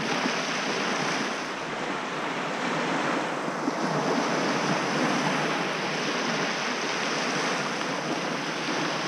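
Small waves breaking and washing up onto a sandy beach in a steady surf wash, with wind on the microphone.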